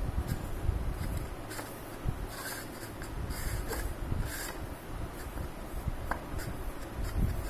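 Fingers scraping ground masala paste from the inside of a steel mixer-grinder jar: soft rubbing with several short scraping strokes, clearest in the first half, over a low steady rumble.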